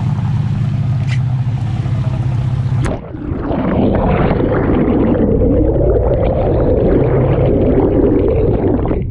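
Boat engine running steadily under splashing water at the surface. About three seconds in, the microphone plunges underwater and the sound turns to muffled, churning rushes of water and bubbles, dull and without any high end.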